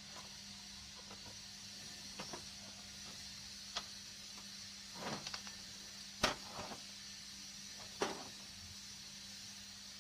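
A handful of short clicks and knocks from printer parts being handled during disassembly, the sharpest a little past halfway, over a steady hiss and low hum.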